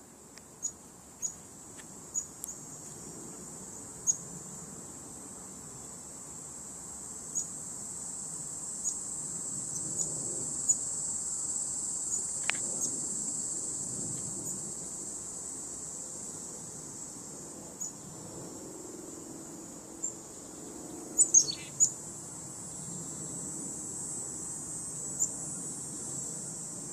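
A steady, high-pitched chorus of insects trilling, with scattered short bird chirps. About three-quarters of the way through comes a quick cluster of chirps and a falling bird call.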